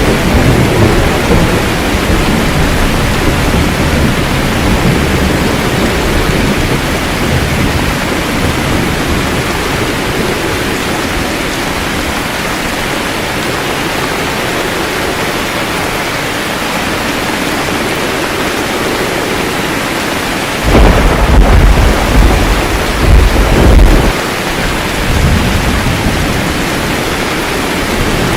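Steady heavy rain with rolling thunder. A low rumble dies away over the first few seconds, and about three quarters of the way through a loud thunderclap rumbles for about three seconds.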